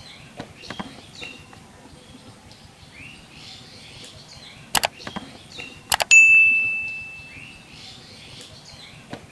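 Birds chirping in the background. About halfway, two sharp clicks are followed by a bright bell ding that rings out and fades over about a second, the click-and-bell sound effect of a subscribe-button animation.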